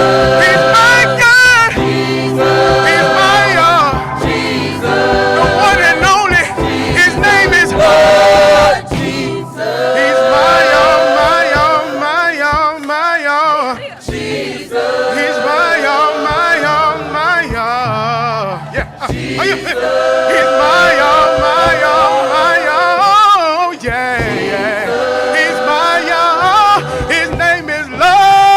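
Gospel choir singing long held chords with vibrato, phrase after phrase, with short breaks between phrases.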